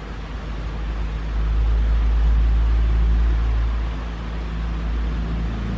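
Steady low mechanical hum over a haze of noise, with a deeper rumble that swells about a second in and eases off near the end.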